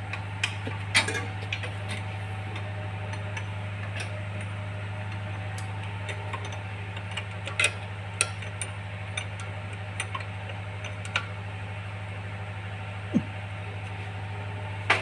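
Freshly rebuilt Kubota M9540 tractor's four-cylinder diesel engine running steadily, a low even drone, with a few light metallic clicks and clinks over it.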